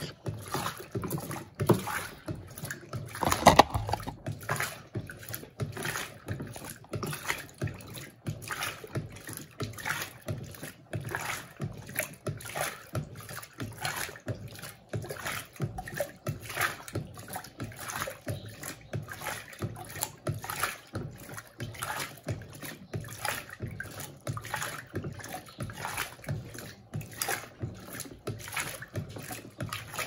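Electrolux Turbo Compacta 7 kg LTC07 washing machine agitating a load of bedding, the water sloshing in quick, regular swishes, with one louder knock a few seconds in.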